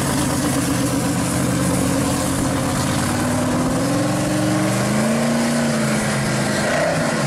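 Supercharged V8 of a 1969 Camaro running at low speed as the car pulls away. The engine note holds steady, then rises and dips gently a few seconds in under light throttle.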